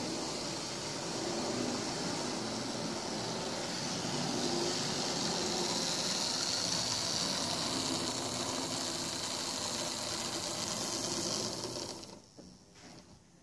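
Lima OO gauge model Class 40 diesel locomotive running on the layout, its small electric motor whirring steadily as the wheels run on the rails. The whir cuts off about twelve seconds in as the model stops, leaving a few faint clicks.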